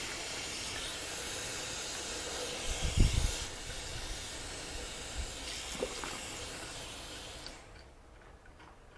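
Water running steadily from a tap, a hissing rush that cuts off sharply about three quarters of the way through. A low thump about three seconds in.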